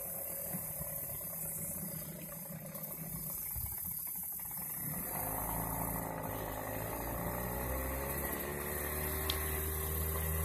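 Small outboard motor on a jon boat running steadily under way. About halfway through its note gets louder and clearer.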